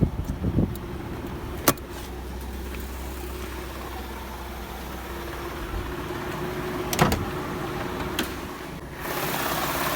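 Car engine idling with the air-conditioning compressor engaged and making a knocking noise. A few sharp knocks stand out, and the noise grows louder about a second before the end. The owner suspects the compressor is low on oil or has a worn bearing.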